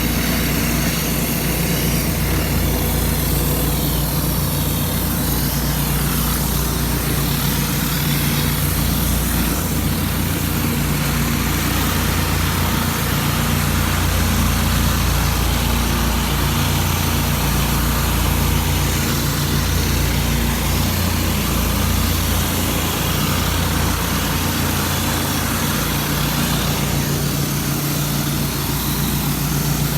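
Pressure washer's engine running steadily at constant speed, with a steady high hiss over it.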